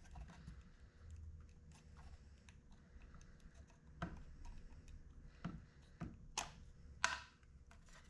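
Faint plastic clicks and taps from handling and unplugging the wiring connector inside a car's side mirror housing, with a few sharper clicks in the second half.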